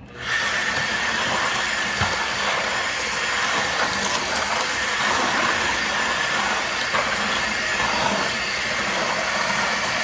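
Eibenstock handheld paddle mixer starting up a moment in and then running steadily at low speed, its motor giving a steady whine as the paddle churns cement-based overlay mix and water in a plastic bucket. It is kept slow so as not to work air into the mix.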